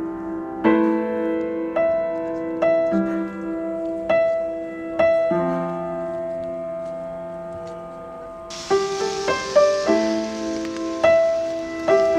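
Slow solo piano music, single notes struck about once a second and left to ring. About two-thirds of the way through, the steady hiss of rain comes in under the piano.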